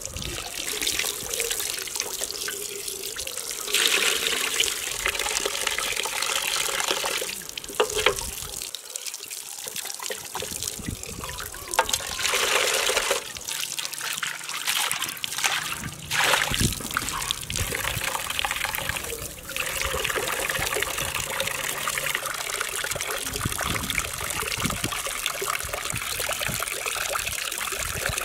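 Water running from an outdoor tap and splashing into a basin as hands rub and rinse a plucked goose, trickling steadily with a few louder gushes, around four seconds in and again near the middle.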